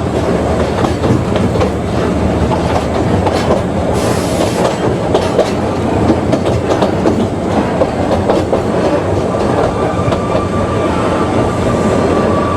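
Ōigawa Railway Ikawa Line train running, heard on board: a steady rumble with rail-joint clickety-clack. There is a brief hiss about four seconds in, and from about three-quarters of the way through a thin, steady wheel squeal joins in and grows near the end.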